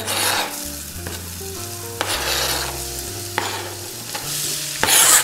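Chopped white onion sizzling as it is tipped into hot oil in a cast-iron skillet, the hiss rising and falling in waves, with a few sharp clicks and a loud burst of sizzle near the end.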